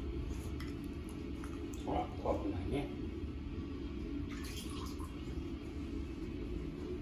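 Steady low rushing noise of a small tiled bathroom, with a brief soft voice-like sound about two seconds in.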